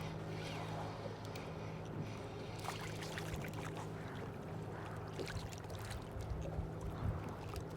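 Water sloshing and lapping, with scattered small knocks and clicks, over a steady low hum.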